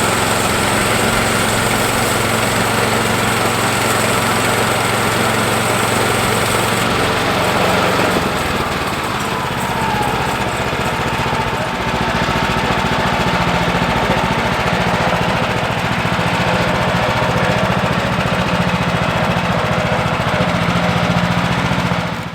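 Gasoline engine of a Woodland Mills HM126 portable bandsaw mill running steadily at speed while the band blade saws through a log. The note changes about eight seconds in, and the engine cuts off at the very end.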